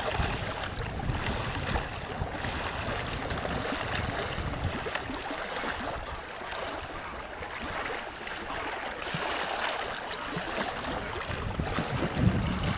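Wind and small waves on open water: a steady wash of noise with a gusty low rumble, easing a little midway.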